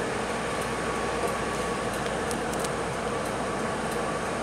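Scania K320UB city bus idling while stationary, heard inside the cabin: a steady engine and ventilation drone with a faint steady whine and a few faint ticks.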